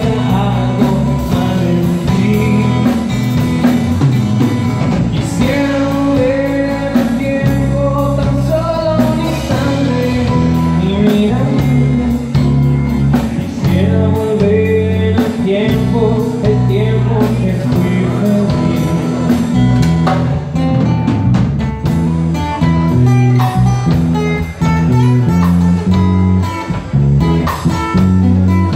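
Live rock band playing: acoustic guitar, electric bass and drum kit with a male lead vocal.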